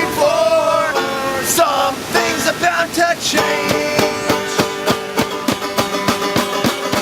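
Acoustic music: strummed strings in a steady rhythm, with a voice singing over the first few seconds.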